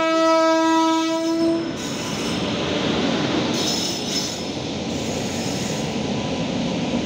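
WAP-7 electric locomotive's horn sounding one long steady note that stops under two seconds in, followed by the steady rolling noise of the train's wheels on the rails as the locomotive and its generator car pass close by.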